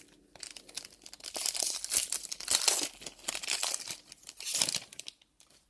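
Foil wrapper of a Magic: The Gathering collector booster pack being torn open and crinkled, in two spells of crackling: a longer one from about a second in and a shorter one near the end.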